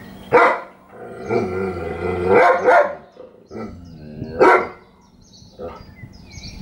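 German Shepherd dog barking several times, in short loud barks and drawn-out calls, the loudest bark about four and a half seconds in.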